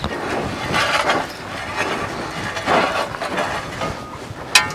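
Gravel crunching under footsteps and a rake dragged across the gravel pad, in uneven patches of scraping noise. Near the end there is a single sharp click with a brief ring.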